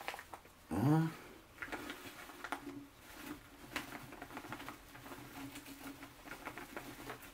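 Sand poured from a plastic zip bag into a glass formicarium tank: fine irregular pattering and trickling with crinkling of the bag. A short voiced hum or grunt about a second in.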